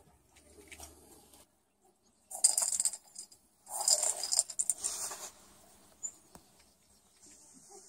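Plastic treat ball with dry kibble inside rolling across a tile floor as a cat pushes it, the kibble rattling; two rattling spells, the second longer, with a few faint ticks in between.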